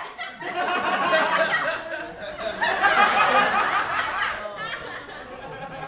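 Audience laughter, many voices chuckling and laughing together, dying away about four and a half seconds in.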